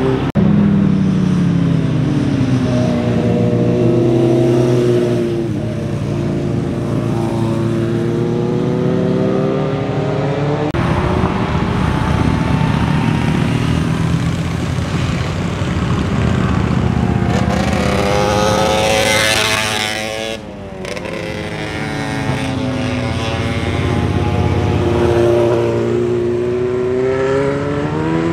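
Motorcycles riding one after another through a tight hairpin. Each engine note drops as the bike rolls into the bend and climbs as it accelerates out. Past the middle, one bike revs higher and harsher than the rest.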